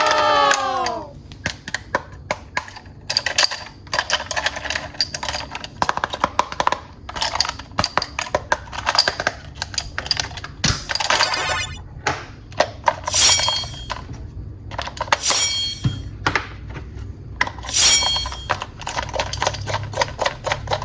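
Rapid clicking and clattering of hard plastic toys being handled, with a few short pitched electronic toy sounds.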